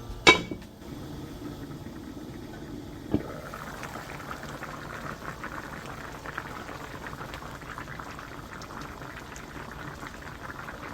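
A pot of dakbokkeumtang (Korean braised spicy chicken) bubbling at a boil. There is a sharp knock just after the start and a lighter one about three seconds in, after which the bubbling grows steady and fuller.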